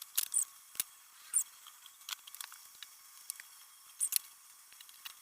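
Scattered sharp metallic clicks and taps with a few short high squeaks, thin-sounding with no low end, from tools working on the BMX's headset and fork.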